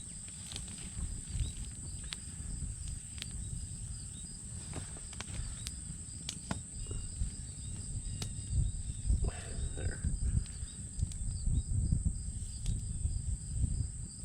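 Insects droning steadily in a high, unbroken tone, over a fluctuating low rumble, with scattered sharp clicks and pops from the cooking fire crackling.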